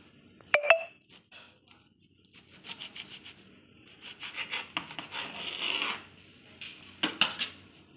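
Knife sawing through a soft white-bread sandwich on a cutting board: runs of quick rasping strokes in the middle, with sharp clicks of the blade on the board about half a second in and again near the end.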